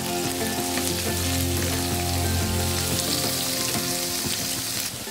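Bitter gourd slices sizzling as they shallow-fry in hot oil in a pan, with light clicks of a wooden spatula stirring them. The sizzle cuts off suddenly near the end.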